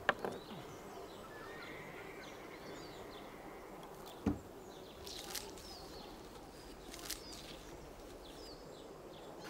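A metal garlic press worked by hand to crush wild garlic cloves, giving a few soft clicks and one louder knock about four seconds in, over steady low outdoor background noise.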